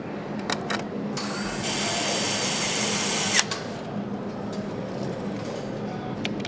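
A handheld power screwdriver runs for about two seconds with a steady high whine and stops with a sharp click. Light clicks of parts and tools come before and after, over a steady low hum of the assembly hall.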